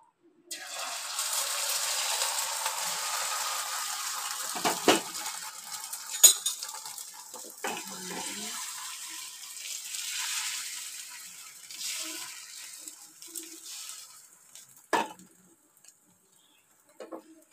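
Beaten eggs sizzling in hot oil in a frying pan, the sizzle starting suddenly about half a second in and slowly dying down. A spatula knocks against the pan several times, loudest about six seconds in.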